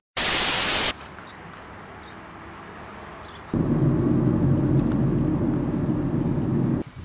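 A burst of TV static, under a second long, then the low rumble of a car driving, heard from inside the cabin; the rumble grows louder about three and a half seconds in and stops just before the end.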